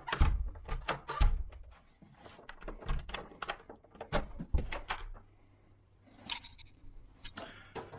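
A series of sharp metallic clicks and knocks from door lock hardware being handled and worked while a commercial knob set is fitted, with a quieter pause a little past the middle.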